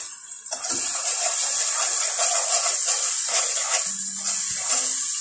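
Chopped onions sizzling in hot oil in a cooking pot, a loud steady hiss that starts about half a second in, just after they are tipped in.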